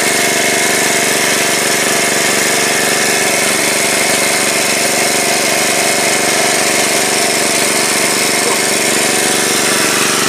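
Small engine running steadily at one constant speed, as a portable petrol water pump does while draining a ditch.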